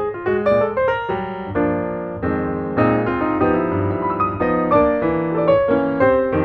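Background piano music, a quick run of notes with sustained chords in the middle.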